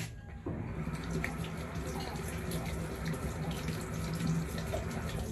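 Water running steadily from a tap, starting about half a second in and stopping at the end, with a steady low hum underneath.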